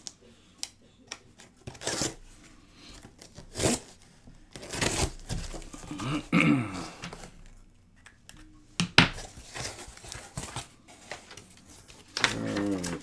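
Cardboard shipping box being torn open by hand: irregular rips of tape and cardboard, with paper rustling and crinkling as the packing is pulled out near the end.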